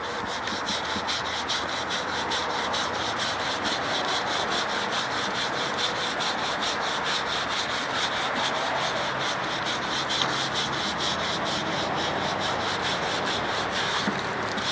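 Hand brush scrubbing a wet wooden board in quick, even strokes, about four a second, over a steady hiss, while the wood cleaner is rinsed off the board.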